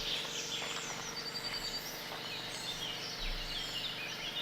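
Outdoor nature sound: many short bird chirps and whistles over a steady background hiss.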